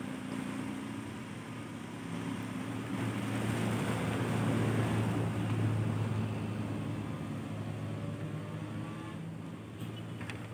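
A motor engine running with a steady low hum. It grows louder a few seconds in and then eases off toward the end.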